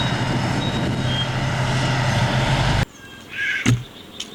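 Truck engine sound: a steady, noisy run with a low hum that cuts off suddenly about three seconds in. A short thump follows near the end.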